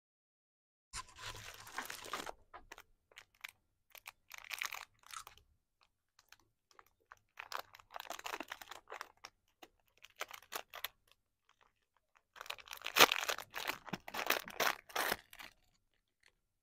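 Clear plastic lollipop wrapper crinkling and crackling in the fingers as it is untwisted and pulled off, in several bursts with short pauses. The loudest crackling comes about thirteen seconds in.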